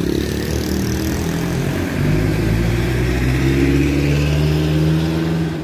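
A motor vehicle's engine running close by on the road, growing louder about two seconds in with its pitch edging up, then falling away near the end, over a steady hiss.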